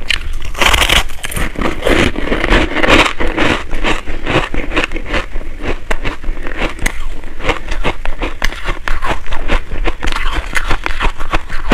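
Bites and chewing of packed purple shaved ice, picked up close on a clip-on microphone: a loud crunching bite about half a second in, then quick crackling crunches as the ice is chewed and more is bitten off.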